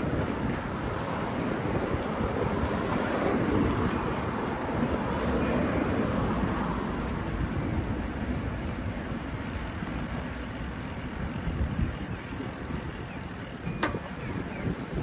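Street traffic and wind noise heard from a moving bicycle, a vehicle swelling past in the first half. A single sharp click near the end.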